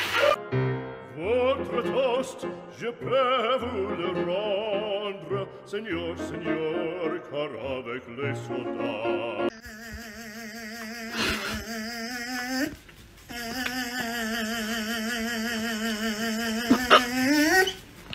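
Music with a singing voice: a song with a bass line, then about halfway through an operatic voice holding long, wavering notes.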